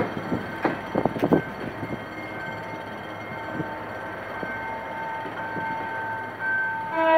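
A departing passenger train hauled by a General Motors GT-22 diesel locomotive, its wheels knocking over rail joints several times in the first two seconds, then running on steadily with a thin tone slowly growing louder. A train horn starts right at the end.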